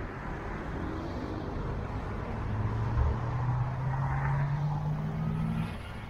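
Car engine running over road noise, its pitch climbing steadily as the car accelerates, then easing off suddenly near the end.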